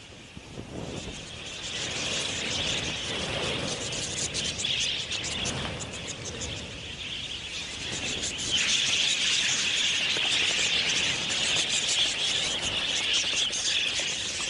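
A large flock of budgerigars chattering, a dense mass of high chirps from many birds at once, growing louder about eight and a half seconds in.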